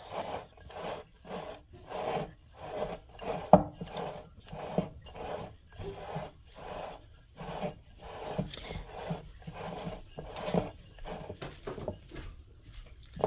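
Wooden spoon mashing and stirring a crumbly tofu cheese mixture in a ceramic bowl: a run of rubbing, scraping strokes about two to three a second, with an occasional sharper knock of the spoon against the bowl.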